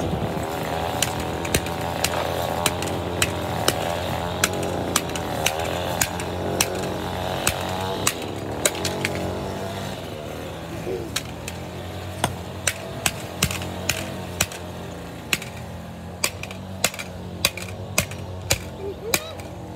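Hammer blows on a camera lying on pavement: sharp repeated strikes, scattered at first and then about two a second in the second half, over a steady low motor hum.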